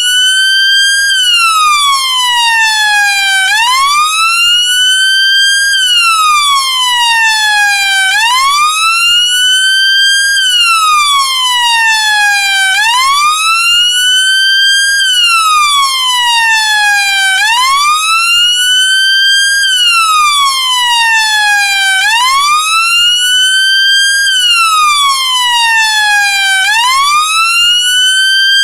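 British Metropolitan Police vehicle siren on its wail tone: a loud electronic tone that rises quickly and then falls slowly, repeating evenly about every four and a half seconds.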